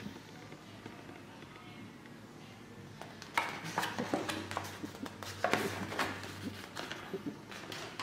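Glossy photobook pages being handled and turned by hand: a few seconds in, a run of irregular paper crackles and rustles as the pages are bent and flipped.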